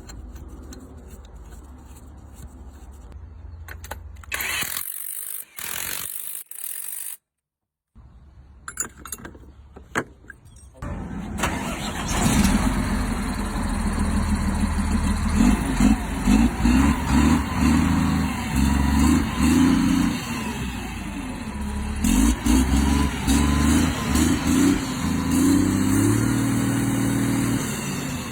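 Vehicle engine with a newly replaced turbocharger, started up about a third of the way in and then running, its pitch rising and falling as the revs change.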